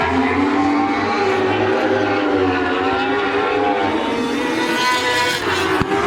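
Several lightning sprint cars racing, their high-revving four-cylinder motorcycle engines (typically 1,000–1,200 cc, often Yamaha R1) buzzing together, pitches wavering up and down as they lap. One engine's pitch climbs about five seconds in.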